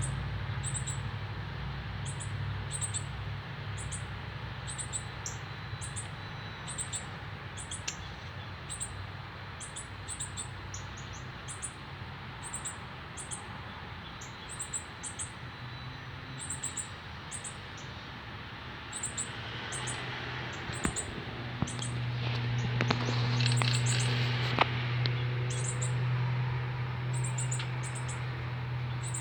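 Northern cardinals calling: short, very high chip notes, often in pairs, repeating about twice a second. A steady low hum runs underneath and grows louder after about two-thirds of the way in.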